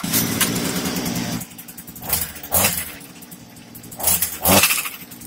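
Stihl brush cutter's small petrol engine starting and running fast for about a second and a half, then dropping to idle and revved briefly twice, spinning the toothed cutting disc through the freshly replaced gearbox, which now runs without the extra noise of the old one.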